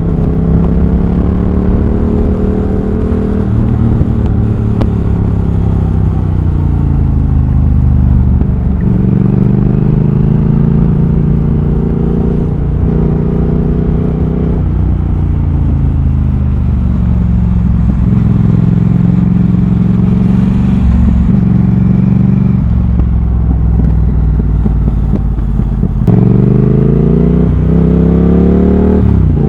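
Triumph Thruxton RS 1200 cc parallel-twin, with a British Customs GP slip-on exhaust and X-pipe, heard from the rider's seat. It pulls through the gears, the engine note climbing and dropping back several times as the throttle opens and closes. Near the end it accelerates hard, rising sharply with quick upshifts.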